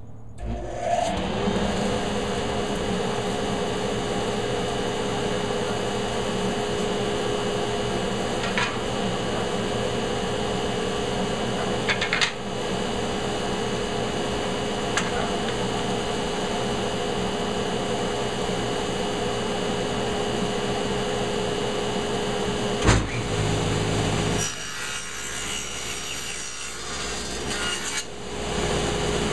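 Table saw starting up and running steadily with a constant whine while walnut boards are fed through the blade, with a few sharp knocks along the way. Near the end the sound drops lower for a few seconds, then comes back to full level.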